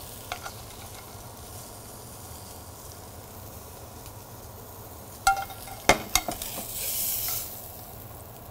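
Halibut and butter sizzling softly in a stainless frying pan. A little past halfway come a few sharp metallic clinks of utensils against the pan, followed by a brief louder hiss.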